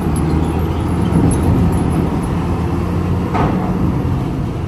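Heavy Volvo truck's diesel engine running steadily at low revs, with a single short knock about three seconds in.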